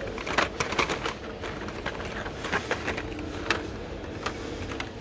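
Plastic-and-card blister packs of toy cars clicking and crinkling against each other and their metal peg hooks as they are flipped through by hand, with a faint steady hum behind.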